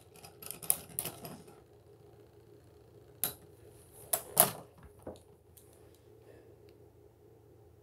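Beyblade spinning tops clacking against each other and rattling on the plastic stadium floor, then a few separate sharp clacks about three to five seconds in as the tops come to rest and are handled.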